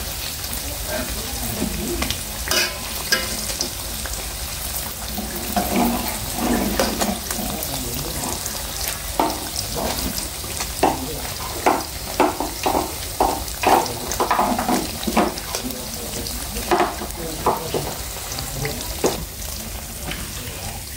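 Battered fruit fritters deep-frying in hot oil in a wok, a steady bubbling sizzle. A run of short sharp clicks and taps comes through the middle stretch.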